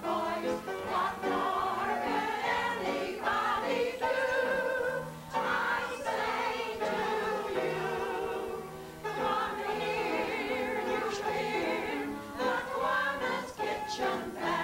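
A group of older women singing a song together as a chorus, in phrases with held notes.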